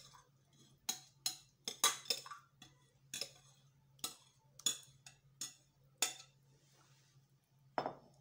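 A metal spoon clinking and scraping against the bowl and a glass baking dish as a creamy vegetable mixture is scraped out and spread. There are about a dozen sharp clinks at irregular intervals, a pause, then two more near the end.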